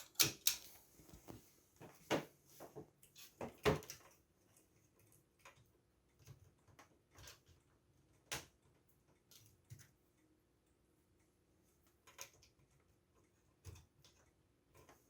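Scattered clicks and knocks of a hard drive being fitted into a computer's drive bay, hard plastic and metal parts bumping and catching, with most of them in the first four seconds and a sharp one about eight seconds in.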